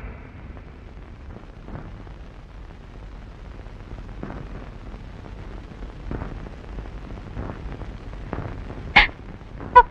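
Low rumbling background noise with a few faint, irregular knocks; a short sharp sound about nine seconds in and a brief higher-pitched sound just after it.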